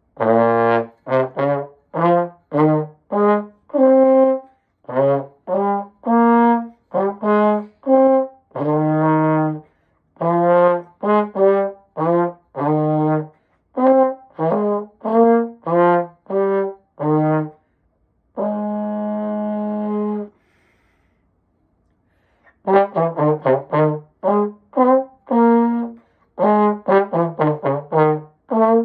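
Unaccompanied slide trombone playing a solo, mostly short separated notes. A long held note comes about two-thirds of the way through, followed by a silence of about two seconds, then a run of quick notes.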